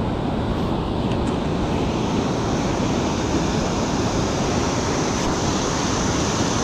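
Ocean surf breaking and washing in over the shallows, a steady rush of water, with wind buffeting the microphone.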